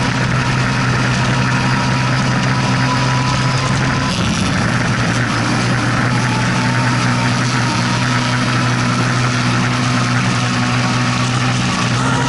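Can-Am Maverick Turbo side-by-side's turbocharged Rotax V-twin running steadily under load, heard from onboard. The engine note changes briefly about four seconds in.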